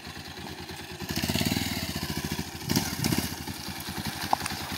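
Motorcycle engine running with an even firing beat. It grows louder about a second in and stays up, with a short surge near the three-second mark.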